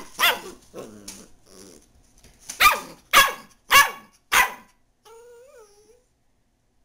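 Dachshund puppy barking: one bark, some softer grumbling, then four sharp barks about half a second apart, ending in a short wavering whine.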